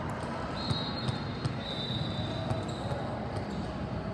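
Indoor volleyball tournament hall noise: scattered thuds of volleyballs being bounced and hit on the courts, over a steady din of the large hall, with a faint high tone coming and going.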